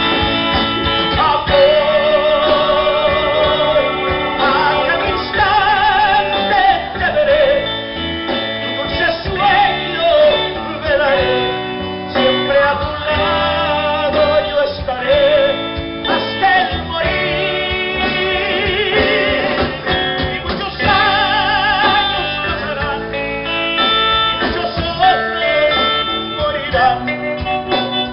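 A four-piece band of guitar, keyboard, bass and drums playing an instrumental passage of a slow love song, with a wavering lead melody carried over the accompaniment.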